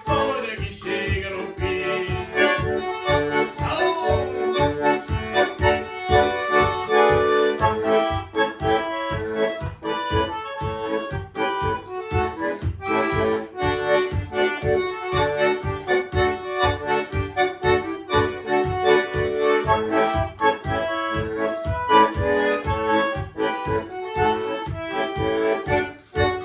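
Bandoneon playing a gaúcho folk melody in sustained reedy chords, over a backing with a steady bass beat.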